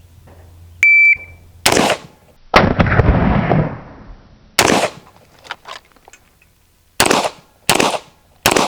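Shot timer beeps once, then two rifle shots about a second apart, the second followed by a long rumbling tail. After a pause of about two seconds come four pistol shots at uneven spacing as the shooter transitions from rifle to handgun.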